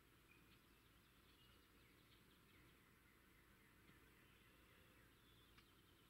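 Faint bird chirps and short calls, many scattered through, over a low steady hiss, with one brief click near the end.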